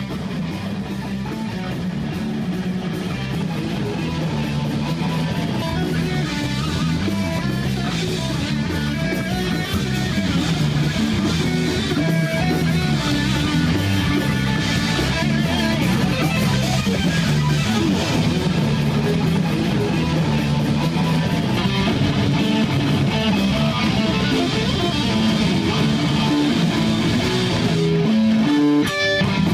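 Rock music led by guitars with bass underneath, playing steadily, with a brief break near the end.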